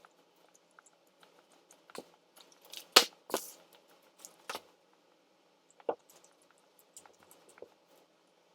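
Eating and food-handling noises: scattered sharp clicks and knocks, with a short, louder cluster of knocks about three seconds in.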